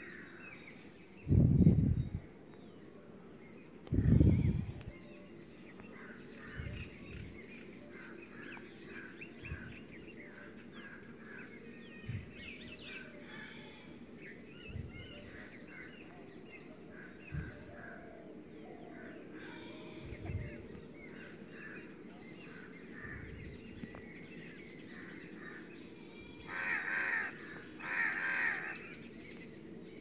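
A crow cawing twice near the end, over a steady high drone of insects and scattered small bird chirps. Two low bumps, the loudest sounds, come in the first few seconds.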